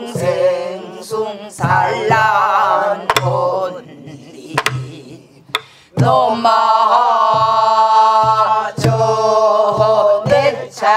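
A mixed group of men and women sings a namdo folk song (southern Korean minyo) in unison with a strongly wavering, shaking vibrato, accompanied by sharp strokes on buk barrel drums. The voices thin out about four to five seconds in, leaving a few drum strokes, then come back in full about six seconds in.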